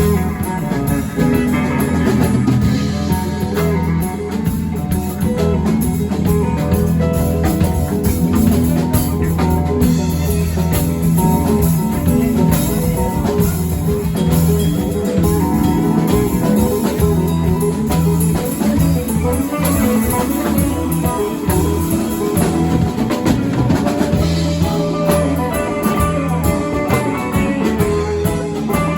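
Music with guitar and a drum kit playing.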